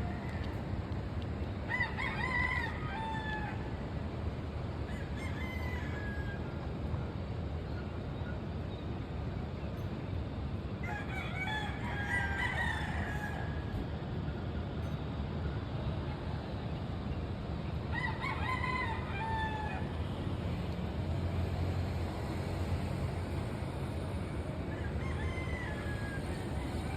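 Roosters crowing at dawn. There are three loud, drawn-out crows about two, eleven and eighteen seconds in, and fainter crows from farther off in between, over a steady low background rumble.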